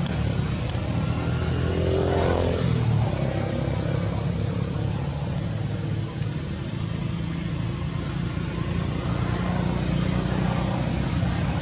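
Steady low hum of a running motor engine, with a higher sound swelling and fading about two seconds in. A thin, steady high whine runs underneath.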